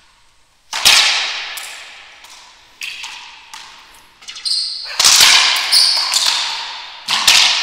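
A racquetball rally: sharp cracks of racquet on ball and ball on the front wall, coming every half second to a second, each one echoing loudly in the enclosed court. A couple of short high squeaks come in the middle.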